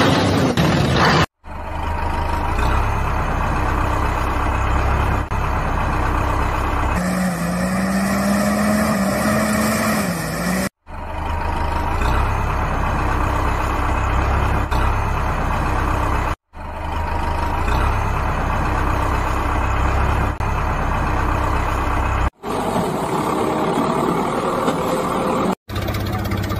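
Heavy truck engine running steadily, a dubbed-in sound effect cut into segments that break off abruptly and restart five times. Near the middle a steady tone rides over the engine for about three seconds.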